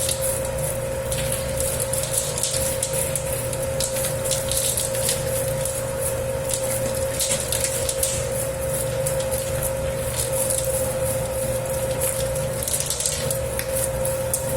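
Dough-kneading machine working a 10 kg batch of pizza dough: a steady motor hum under irregular wet churning of the dough in the bowl.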